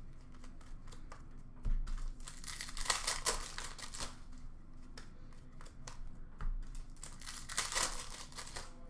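Upper Deck hockey trading cards handled and flicked through by hand: crisp card clicks and paper rustling, in a few short spells.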